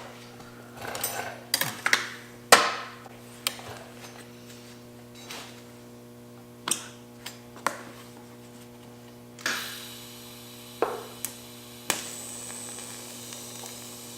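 Steady electrical hum under about a dozen irregular taps and knocks of hand tools on metal, a few of them sharper with a short ringing tail.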